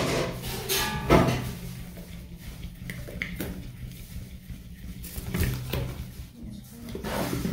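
A few separate knocks and clinks of kitchen utensils against a bowl while cake batter is being made, the loudest near the start and about a second in, over a faint steady low hum.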